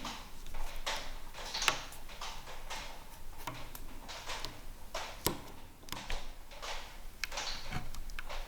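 Hand work on wooden furniture parts: irregular knocks, clicks and short scrapes, a few of them sharper, about two seconds in and again about five seconds in.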